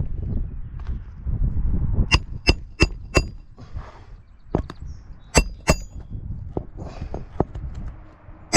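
Hammer tapping on metal during a roof shingle repair, with a sharp ringing clink on each blow: a run of four quick strikes about three a second, a pair a couple of seconds later and another pair near the end, with shingles and gear rustling in between.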